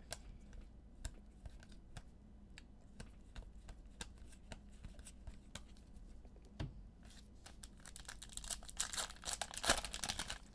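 Trading cards clicking and sliding against each other in the hands, then about eight and a half seconds in a foil card-pack wrapper crinkling and tearing for a couple of seconds.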